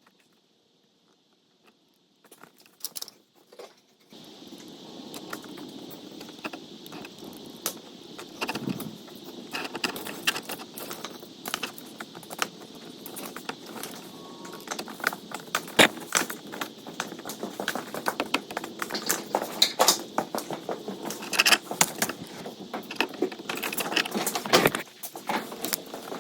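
Wire mesh being pressed and melted into a plastic bumper: many small sharp metallic clicks and crackles over a steady hiss that starts about four seconds in.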